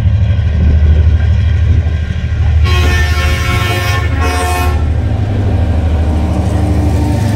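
Diesel-electric locomotives of a coal train rumbling loudly as they approach, while the lead locomotive sounds its horn twice about three seconds in: a long blast, then a short one.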